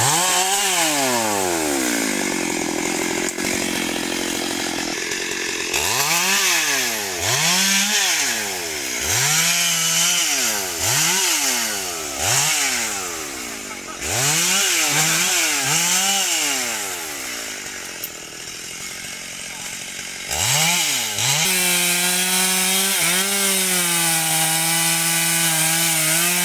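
Two-stroke chainsaw running: after a spell of idling, the throttle is blipped up and down again and again, then about three-quarters of the way through it is held wide open at a steady high pitch as the chain cuts into a felled teak trunk.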